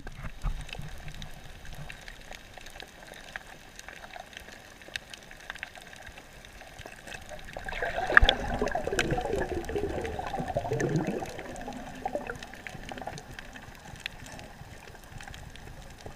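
Underwater sound picked up by a GoPro in its waterproof housing: a faint hiss with scattered sharp clicks. About 8 seconds in there is a sharp knock, then a bubbling gurgle of air bubbles lasting about three seconds.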